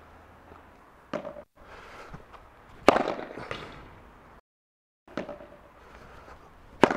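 Sharp hollow pops of a padel ball being struck, four impacts roughly every two seconds: the partner's feeds and the Cork Supreme II Power racket hitting overheads. The loudest impacts are about three seconds in and at the end, the last one an overhead smash. A short dead gap of silence falls midway.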